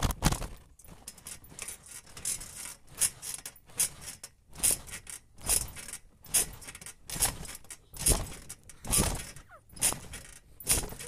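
Trampoline being bounced on: a steady rhythm of thumps on the mat, with the springs creaking and jangling on each bounce, a little more than one bounce a second.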